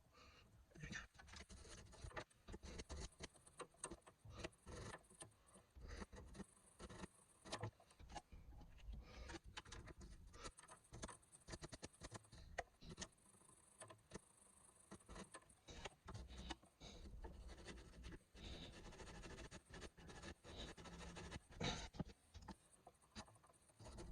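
Faint, irregular small clicks, taps and rustles of hands and tools being handled around the rear suspension while the drop-link bolts are soaked in penetrating fluid.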